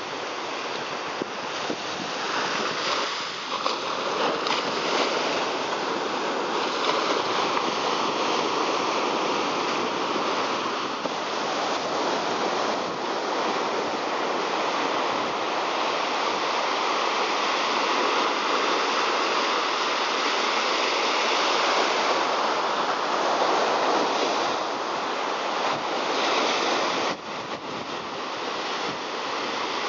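Steady rushing of water, an even wash of noise without surges, that dips suddenly near the end.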